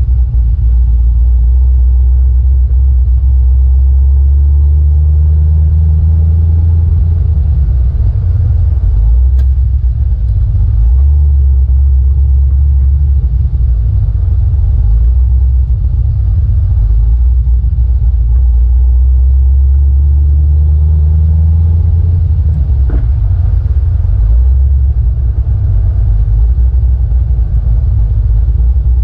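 Tyre and road rumble heard from inside the right rear wheel arch of a moving HSV GTS, swelling and easing with the drive, with a couple of sharp knocks along the way. These knocks are the kind of thumping the owner traces to a loose right-rear sway bar, likely with worn bushes.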